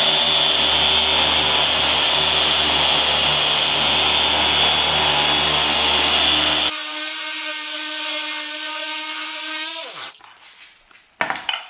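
Electric rotary polisher with a foam pad buffing a lawn tractor's painted hood, its motor running steadily with a whine. About two-thirds through, the low rumble drops out abruptly, and about ten seconds in the motor is switched off and winds down with a falling pitch.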